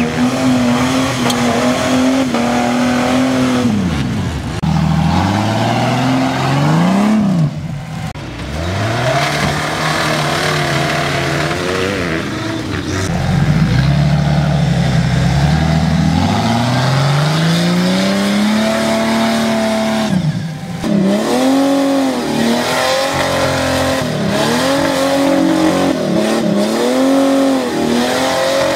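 Off-road trial 4x4's engine revving hard, its pitch climbing and dropping again and again: long pulls at first, then a run of short, quick throttle blips in the last third.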